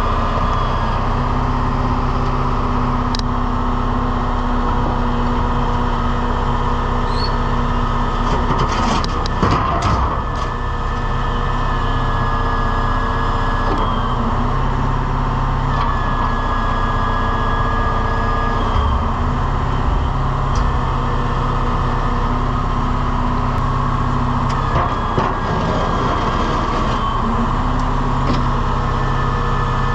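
Truck engine running steadily, powering the grapple loader's hydraulics, with tones that step up and down in pitch as the control levers are worked. A cluster of knocks and clatter comes about nine to ten seconds in.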